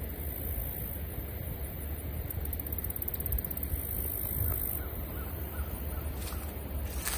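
Crows cawing faintly a few times in the second half, over a steady low rumble of wind on the microphone.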